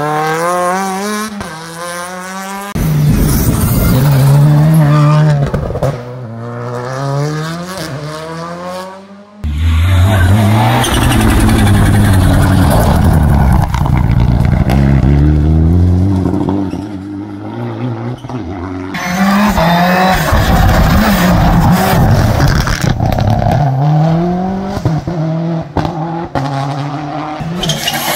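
Rally cars at racing speed, one after another: engines revving hard, the pitch climbing through each gear and dropping on each shift and lift-off. The sound changes abruptly several times as it switches from one car to the next, including a Mitsubishi Lancer Evolution on gravel.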